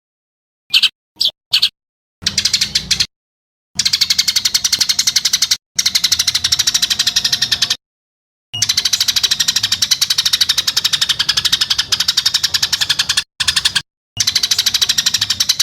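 Songbird giving harsh, very fast rattling trills ('tembakan kasar' phrases) of the kind used on training tracks for competition birds. Three short bursts about a second in, then long rattling runs broken by sudden gaps.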